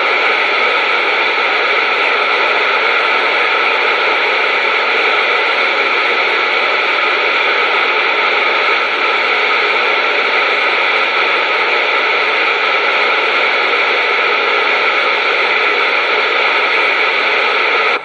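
CB radio receiver hissing with steady static: open band noise with no station coming through.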